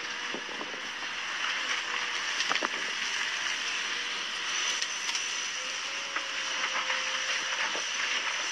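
XCMG crawler excavator working: its diesel engine and hydraulics run steadily with a faint steady whine, while scattered knocks of rock come as the bucket scoops a load and swings it over a dump truck.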